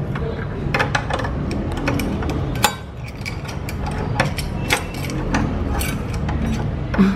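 A heavy metal padlock and its door hasp being worked by hand, giving irregular metal clicks, knocks and clinks as someone struggles to close the lock.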